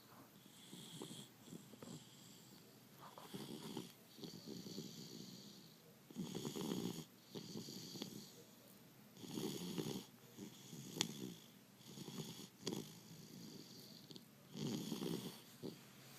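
Pit bull snoring in deep sleep with its tongue out: a rattling snore on each breath, in and out, repeating every two to three seconds. A single sharp click about eleven seconds in.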